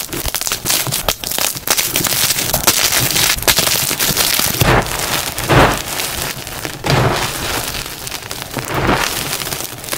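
Gym chalk blocks crushed in bare hands: dense, continuous crunching and crackling as the blocks crumble. A few heavier crunches come about halfway through and again near the end.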